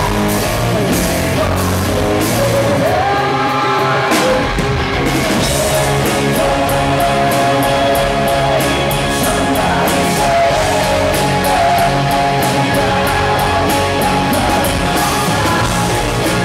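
Live rock band performing: a male lead vocalist singing over electric guitars, bass and a drum kit.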